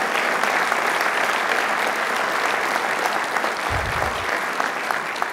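Audience applauding steadily, with a short low thump about four seconds in.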